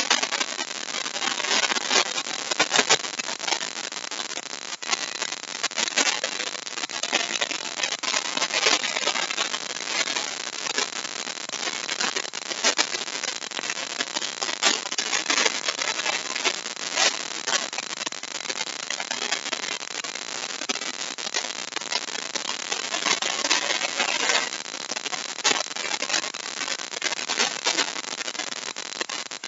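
A handheld router running continuously as it cuts a deep mortise in a wooden board: a steady harsh noise shot through with dense crackling as the bit chews through the wood.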